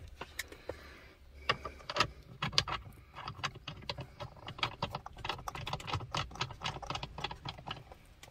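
Light metallic clicking and rattling: the 16 mm centre bolt of a BMW E46 steering wheel being threaded onto the steering column by hand. The clicks come a few at a time at first, then quickly and irregularly from about three seconds in.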